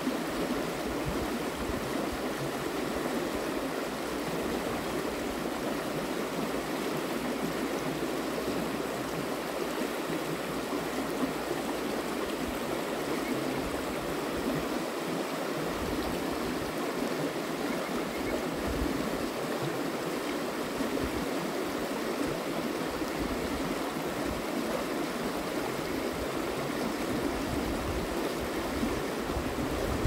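River water flowing: a steady, even rushing, with patches of low rumble now and then through the second half.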